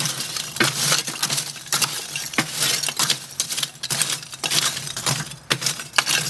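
Lump charcoal clinking and rattling, piece against piece and against the metal, as it is stirred with a metal ash tool in a ceramic kamado's firebox. Many irregular clinks come one after another. This is a stir before the cook that mixes fresh lump into leftover lump and works loose the ash that clutters the bottom.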